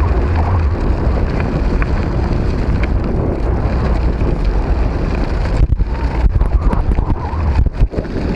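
Wind buffeting the microphone of a camera on a moving bike, over the low rumble of tyres rolling on a gravel track. The buffeting flickers with a few brief dropouts in the last few seconds.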